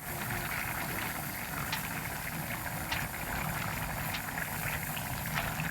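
Vegetable stock simmering in an uncovered pot: a steady bubbling hiss with a few small pops.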